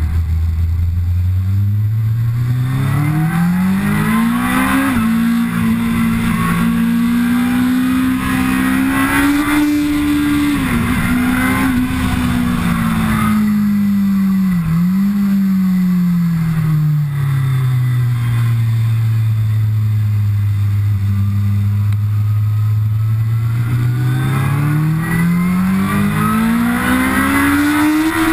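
Kawasaki ZX-10R's inline-four engine under hard acceleration, heard from the rider's seat: the pitch climbs steeply with short dips at the gear changes, falls away for a few seconds as the bike slows, holds low, then climbs steeply again near the end. Wind noise rushes over the microphone throughout.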